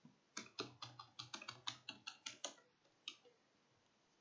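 Typing on a computer keyboard while entering a sudo password: a quick run of about a dozen keystrokes over two seconds, then one more keystroke about three seconds in.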